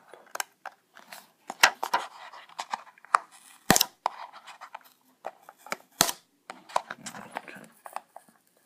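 A Lightning cable's packaging being worked open by hand: irregular sharp clicks, snaps and crinkling, with three louder snaps about one and a half, three and a half and six seconds in.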